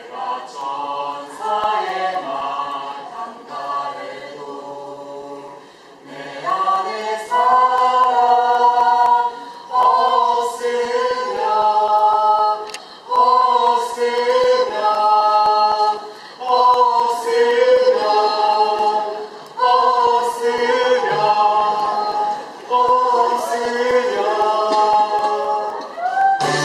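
A small choir of men's and women's voices singing, softly at first and louder from about seven seconds in, in phrases of held notes.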